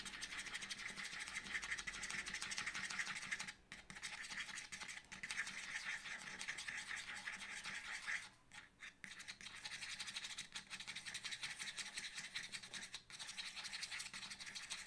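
Stirrer scraping round a container of white PVA glue, mixing it: a steady scratchy rubbing that breaks off briefly about 4, 8 and 13 seconds in.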